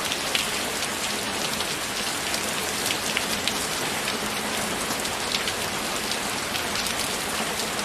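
Steady rain falling, an even hiss with many distinct drops pattering on a surface.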